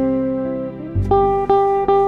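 Background music: a guitar playing sustained single notes, four picked one after another, with a low bass note coming in about halfway.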